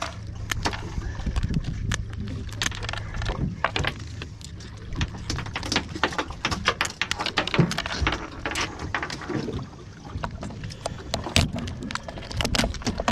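Shears snipping and cracking through crab shell on a plastic cutting board as crabs are cut up for bait: an irregular run of sharp clicks and crunches, over a low steady hum during the first few seconds.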